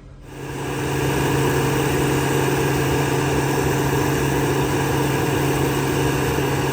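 A large engine running steadily at a constant speed, a low even hum that fades in within the first second.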